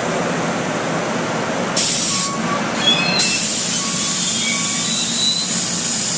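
NJ Transit Comet IV passenger coaches rolling slowly past as the train pulls in, with a steady rumble of wheels on rail and short thin squeals from the wheels and brakes. A high hiss comes in briefly about two seconds in, then again from about three seconds on.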